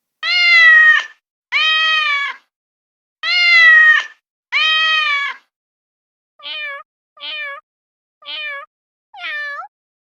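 Domestic cat meowing eight times: four long, loud meows about a second each, then four shorter, quieter meows.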